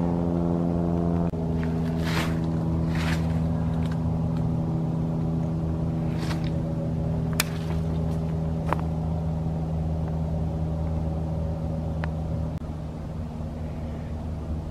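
A steady motor drone holding one even pitch, fading slightly near the end, with a few brief sharp clicks over it.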